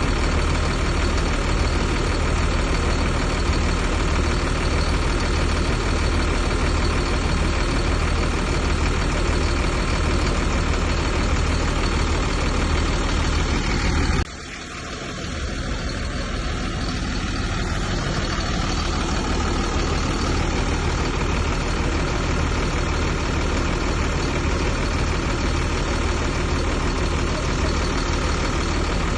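Heavy diesel engine of a bulldozer, running steadily with a deep low rumble. About halfway through, the sound drops suddenly and builds back up over a few seconds.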